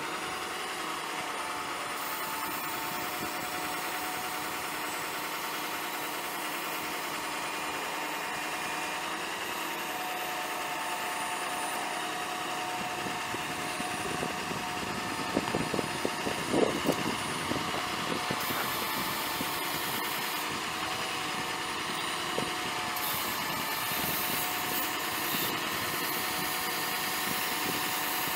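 Ford 6.0L V8 turbo diesel engine running steadily at idle. About halfway through, a short run of knocks and clunks sounds over it.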